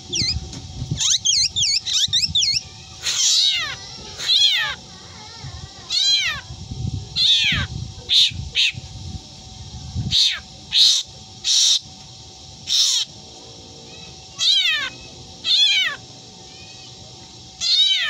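Black drongo mimicking a cat's meow: about a dozen separate drawn-out, meow-like calls, most falling in pitch, with a run of quick chirps in the first couple of seconds. A faint steady hum runs underneath.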